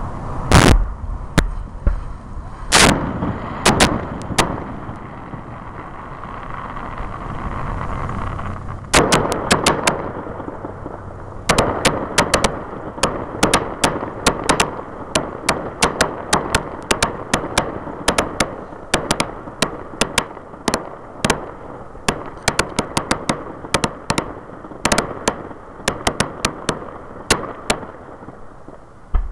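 Fireworks display: several loud aerial shell bursts in the first few seconds, then from about nine seconds in a long, rapid run of sharp crackling pops, many a second.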